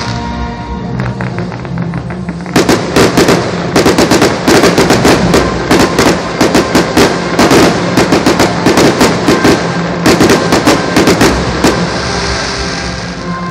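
A rapid volley of firework bangs and crackles, several a second, starting a couple of seconds in and stopping shortly before the end, over music.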